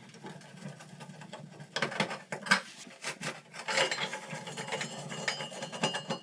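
Screwdriver backing out the screws of a chrome bathtub overflow cover plate: irregular metal-on-metal scraping and clicking, with a sharp click about two and a half seconds in.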